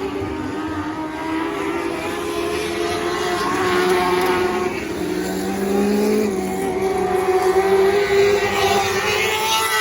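Several micro sprint car engines running hard on a dirt oval during a race, their high revving notes overlapping and swelling and fading as the cars go round, with one car passing close near the end.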